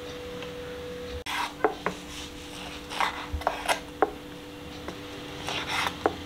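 Knife cutting mutton organ meat on a cutting board: a few irregular knocks of the blade on the board and short scraping strokes, over a steady low hum.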